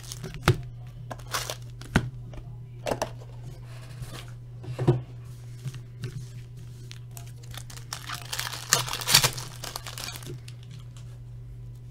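A sealed box of trading cards being torn open: the wrapper crinkling and tearing in scattered crackles, with the longest, loudest stretch of tearing about eight to nine seconds in. A steady low hum runs underneath.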